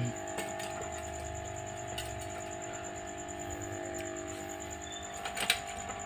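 A steady hum with a faint high whine above it, and a few light clicks and taps, the strongest about five and a half seconds in.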